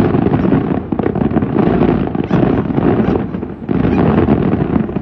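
Fireworks display with many shells bursting in quick succession, their bangs running together into a continuous rumble with crackle on top. There is a short lull about three and a half seconds in before it swells again.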